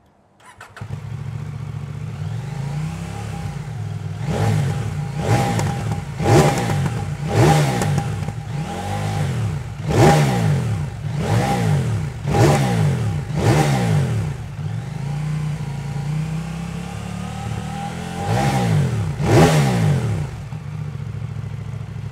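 CFMoto 800MT parallel-twin engine running through an SC-Project Rally Raid slip-on muffler: it idles, then is revved in a string of about nine short throttle blips, settles back to idle, and is blipped twice more near the end.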